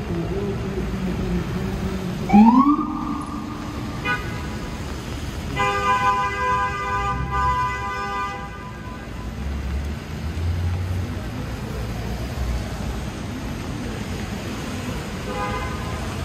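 An emergency vehicle's siren whoops up in pitch and holds a couple of seconds in. It is followed by a long horn blast of about three seconds and a short toot near the end, over steady city traffic noise.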